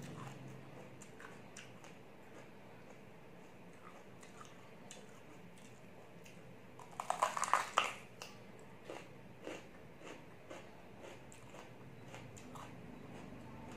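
A piece of raw green bell pepper bitten with a loud crisp crunch about seven seconds in, then chewed, with scattered smaller crunches and clicks.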